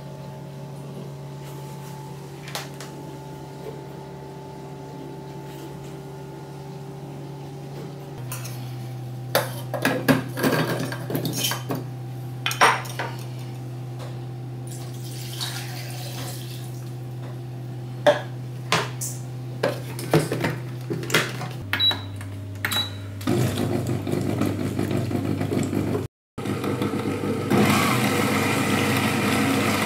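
Clinks and knocks of ingredients and water going into the stainless steel bowl of a Yammi kitchen robot, over a steady low hum. About two-thirds of the way through, the Yammi's motor starts, running at speed 4 and chopping the contents with a louder, even whirring noise.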